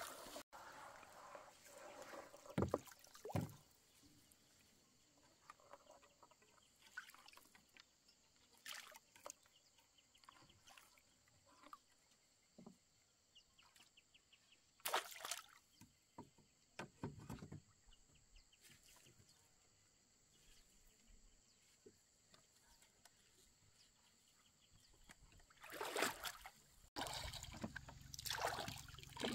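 Scattered splashes and sloshing of lake water against a small boat, each lasting well under a second, with long quiet gaps between them. A low steady hum comes in near the end.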